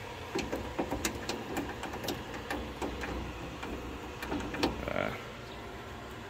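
Irregular metal clicks and taps from a hand tool working on the bolts of a mini truck door's bent window regulator inside the bare steel door panel.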